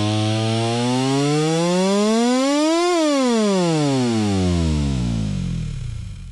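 Lawnmower-style engine sound effect: a buzzing engine tone that climbs steadily in pitch for about three seconds, then winds down in pitch and dies out near the end.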